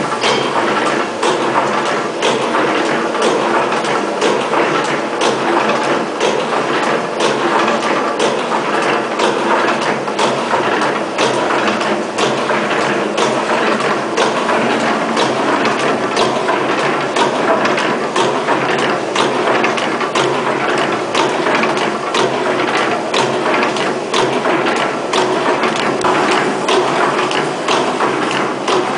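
SKY-201A automatic rope tipping machine running, a continuous mechanical clatter with sharp clicks repeating at an even rhythm as it cycles through feeding braided rope and forming its celluloid-film hook tips.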